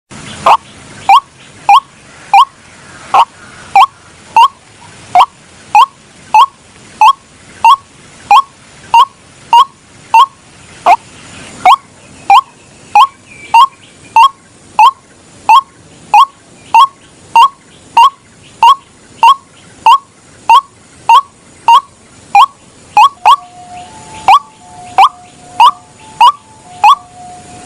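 White-breasted waterhen (ruak-ruak) calling, a short quick-sliding note repeated steadily about one and a half times a second, the bird's mating call. Near the end a second, lower held note joins in between the calls.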